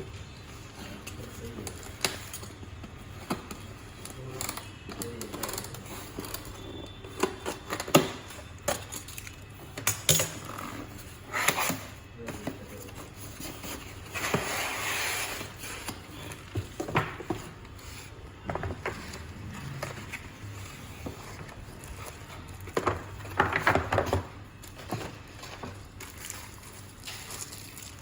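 Laptop box packaging being handled and opened: scattered clicks and knocks of cardboard and plastic, a couple of seconds of rustling, tearing noise about halfway through, and another burst of rustling near the end.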